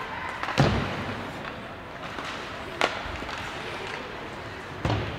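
Ice hockey play: three sharp knocks of puck and sticks against the rink boards, the loudest about half a second in with a deep thud, a higher crack near three seconds and another thud near the end, over the steady background noise of the rink.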